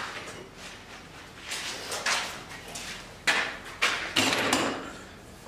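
A run of short scraping, sliding noises from tools being handled at a workbench, the loudest three coming quickly one after another a little past the middle.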